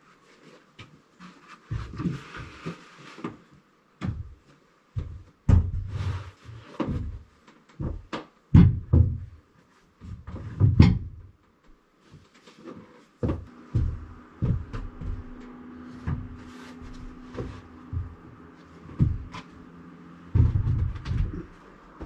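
Rough-sawn wooden boards and slabs knocking and thudding as they are handled and set down on a steel sawmill bed, a string of irregular heavy knocks.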